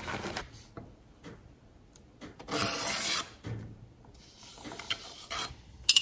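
Chopped peppers and mushrooms scraped and slid off a wooden cutting board onto a pizza: a rough scraping rasp lasting under a second about two and a half seconds in, and a shorter scrape near the end. A brief rustle of cheese shreds shaken from a plastic bag opens it.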